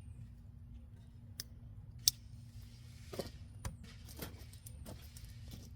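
Victorinox Ranger pocketknife blade cutting paper: a few short, sharp snips and rustles, the loudest about two seconds in, over a steady low hum.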